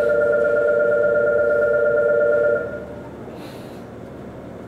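A steady electronic departure buzzer with a couple of fixed pitches sounds for under three seconds and then cuts off. It leaves the low background of a train standing at the platform, with a short hiss about a second later.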